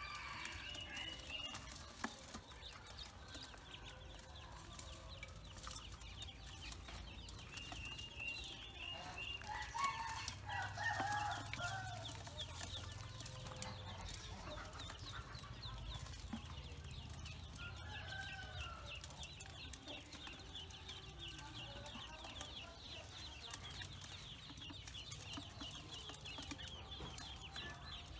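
Pekin ducklings peeping constantly in short, high chirps as they feed. A louder, lower fowl call sounds about ten seconds in.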